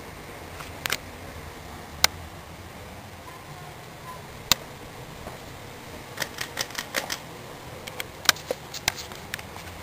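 Sierra Victorian Copy 52-inch ceiling fan running with a steady low hum. Sharp irregular clicks are scattered through it: a few early on, then a quick cluster in the second half.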